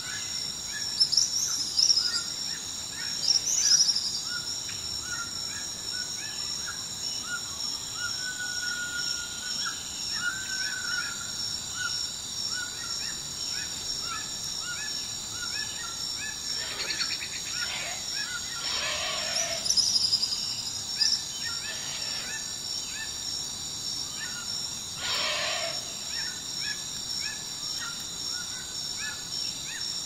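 Small songbirds chirping and calling, with a few louder calls about a second in, near 4 s, around 17 to 21 s and near 25 s. A steady high-pitched drone runs underneath.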